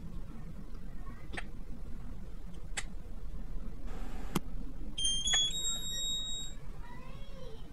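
A few sharp plastic clicks as a label roll is seated in a Niimbot D101 label printer and its lid is shut. About five seconds in, the printer gives a short electronic chime of beeps stepping up in pitch, its tone on being switched on.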